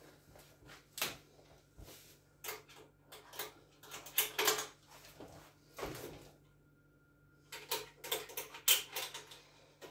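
Scattered light clicks, knocks and rustles of hands working on a stainless-steel drum chicken plucker during assembly, fitting parts and clips to the drum, with a short lull about two-thirds of the way through.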